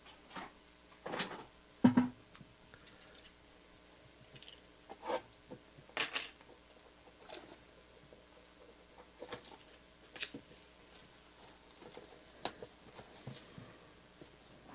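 Sparse rustles, taps and soft clicks of a trading-card box being opened and its contents handled, with short gaps of quiet between them.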